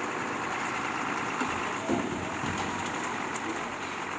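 Heavy construction-vehicle engine running steadily, with one short louder knock about two seconds in.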